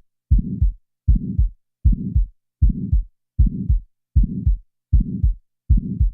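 Heart sounds: each beat is a first heart sound with an ejection click, followed by a systolic ejection murmur, and then the second heart sound. There are eight even beats, about 78 a minute, all low-pitched.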